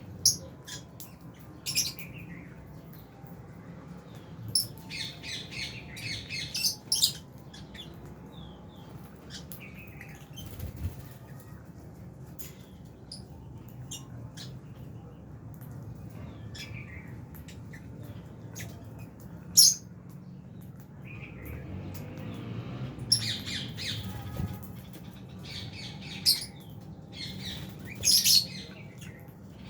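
A flock of lovebirds, Fisher's and albino, giving shrill chirps and squawks in short clusters, with a sharp single call about two-thirds through, over a steady low hum.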